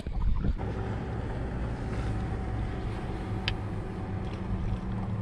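Electric bow-mounted trolling motor humming steadily, with wind rumbling on the microphone.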